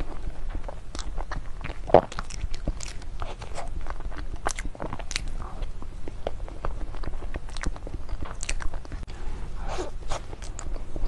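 Close-miked eating of a soft cream cake: wet mouth clicks, lip smacks and chewing, with a spoon scraping and clicking in a plastic box. The clicks come at an irregular pace, with one sharper click about two seconds in.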